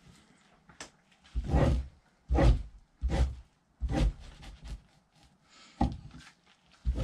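Fleshing knife scraping fat and membrane off a raccoon hide stretched over a wooden fleshing beam, in a series of separate rough strokes, about one a second, then two more spaced further apart near the end.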